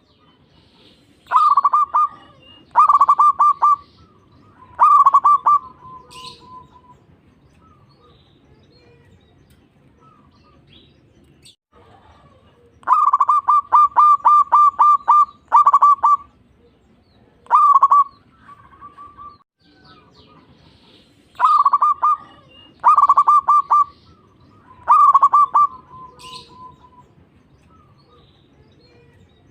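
Zebra dove (perkutut) song: repeated bouts of rapid, pulsed cooing notes, some phrases ending in a softer drawn-out note, with pauses of several seconds between bouts.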